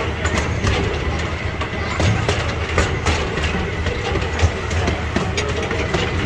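Miniature ride-on train running along its track, a steady rumble with irregular clicks of the wheels over the rail.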